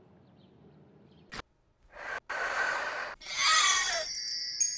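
Cartoon sound effects: after a near-silent stretch and a short click, a breathy, gasp-like rush sets in about two seconds in. It grows louder, and high twinkling tones come in near the end.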